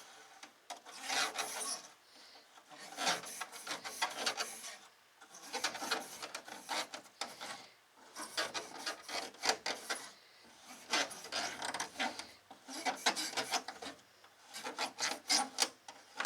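Small straw cleaning brush scrubbing dust out of a portable air conditioner's intake, bristles rasping over it in quick back-and-forth strokes. The strokes come in bursts of a second or two with short pauses between.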